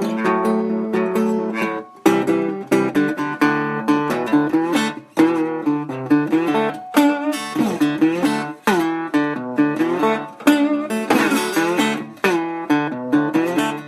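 Acoustic slide guitar: plucked notes and strummed chords, with notes gliding up and down in pitch, played in short phrases that each stop briefly before the next.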